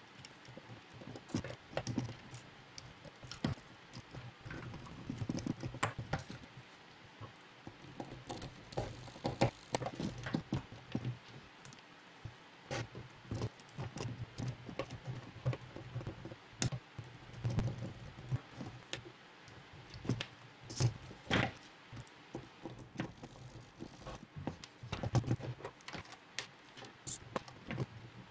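Irregular clicks, taps and knocks of hard acrylic robot-kit parts being handled and fitted together, a hexapod leg being attached to the body.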